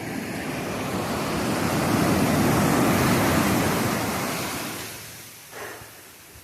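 Pacific Ocean surf: a wave rushes in, swelling to a peak over about two seconds and then washing out and fading. A short, quieter sound comes about five and a half seconds in.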